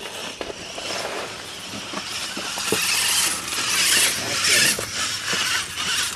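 R/C rock crawler driven hard over rock and loose dirt: a gritty scraping hiss of tires and chassis on the ground, growing louder after about two seconds, with scattered clicks.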